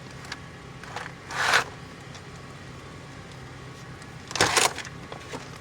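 Two brief scraping, rustling noises from parts being handled during door-panel work, about a second in and again about four and a half seconds in, with a few light ticks, over a steady low hum.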